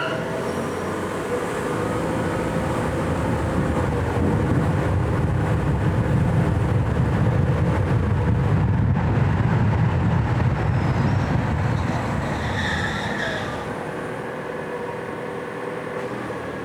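Toyota RAV4 hybrid driving, recorded from outside the car: a steady engine and tyre rumble that swells through the middle and eases off near the end. A brief high squeal comes about three-quarters of the way through.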